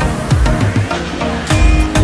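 Electronic dance music with a heavy bass beat and ticking hi-hats; the bass grows louder near the end.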